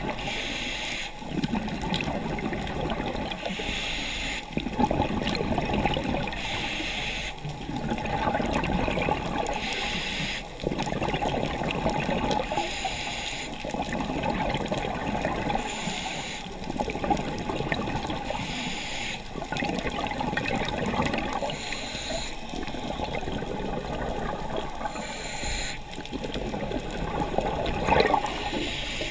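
Scuba diver breathing through a regulator underwater: a short hiss of each inhalation alternating with a longer bubbling rush of exhaled air, in a steady cycle about every three seconds.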